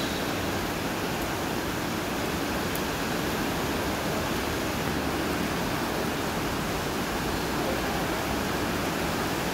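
Steady, even rushing ambience of a subway station platform, with no distinct events.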